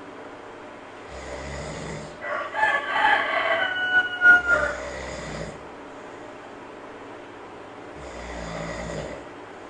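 A sleeper snoring slowly, one breath every three to four seconds, while a rooster crows once about two seconds in, louder than the snoring.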